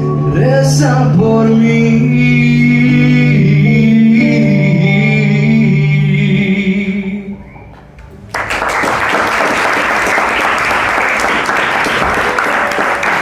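A young man's amplified voice holds the closing notes of a song over instrumental backing music, which fades out about seven seconds in. About a second later applause breaks out suddenly and carries on.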